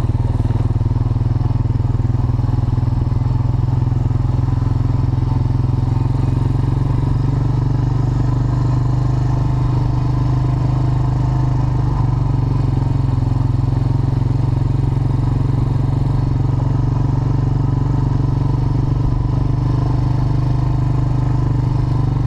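Quad bike (ATV) engine running at a steady cruising speed, heard from on board: an even low drone that holds the same pitch throughout.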